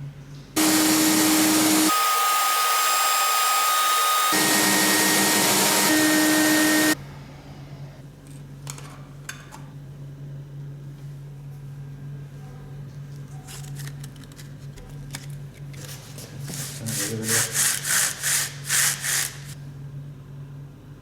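A power tool, most likely an electric sander, runs loudly for about six seconds and then stops suddenly. Later, sandpaper is rubbed back and forth on wood in about ten quick, even strokes, roughly four a second.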